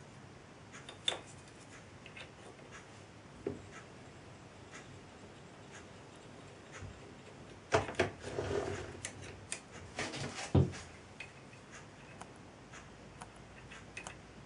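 Scattered light metal clicks and knocks as a thread-angle gauge and the screwcutting tool are handled against the work on a stopped lathe, with a busier run of knocks and rubbing past the middle as the toolpost clamp lever is worked.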